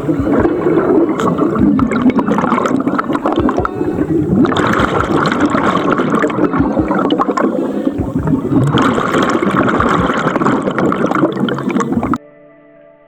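Water gurgling and splashing, swelling in surges every few seconds, then cut off suddenly near the end.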